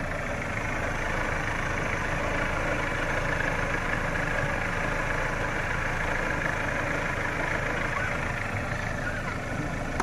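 Chevrolet Aveo engine idling steadily, heard from under the open hood.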